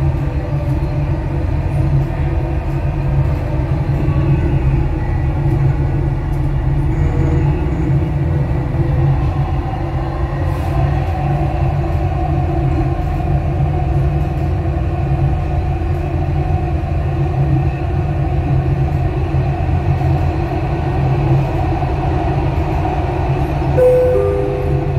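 Dubai Metro driverless train running steadily, heard from inside the front car: a continuous low rumble of wheels on track with a faint steady whine. Near the end a short two-note falling chime sounds, the kind that comes before an onboard station announcement.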